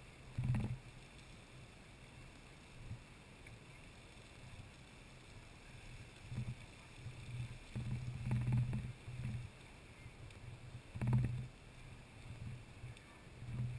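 Lady Knox Geyser erupting: a steady rush of its water and steam column, broken by several brief low thumps, the loudest about half a second in and again about eleven seconds in.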